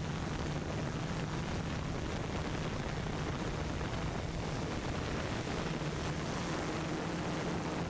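Tarot 680 hexacopter's motors and propellers humming steadily in flight, a low hum under a constant rushing hiss. About six seconds in a second, higher hum tone joins.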